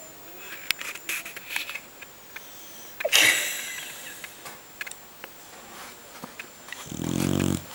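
Beagle snoring in its sleep: a loud, noisy snort about three seconds in, then near the end a low, pitched snore lasting under a second, with a few small clicks in the first two seconds.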